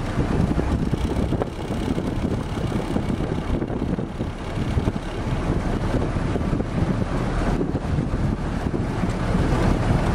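WWII Jeep's four-cylinder engine running as it drives along, mixed with heavy wind buffeting the open-air microphone. The noise is a steady low rumble with no distinct tones.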